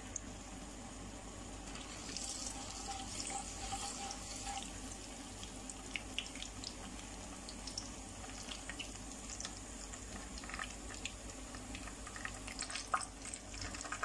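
Cumin, nigella and fenugreek seeds sizzling in hot oil in a non-stick kadhai: a steady hiss with scattered small crackles, and one sharper click near the end.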